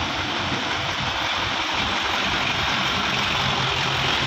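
Tractor diesel engine running steadily at low revs while pulling a trailer heavily loaded with sugarcane, under a steady hiss.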